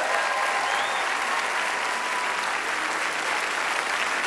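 Audience applauding steadily: a large crowd clapping together.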